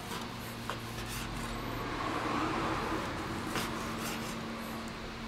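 Knife slicing through a grilled ostrich fillet on a bamboo cutting board: soft scraping that swells a little in the middle, with a few light clicks, over a low steady hum.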